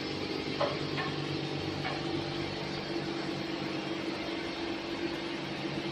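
Steady machine hum with a low drone, in a workshop beside a sleeve labeling machine, with a few light clicks about half a second and two seconds in.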